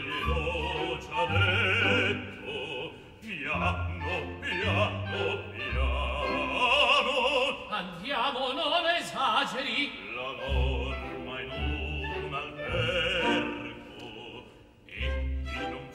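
Male opera singer singing with vibrato over an orchestra, whose short low bass notes sound again and again beneath the voice.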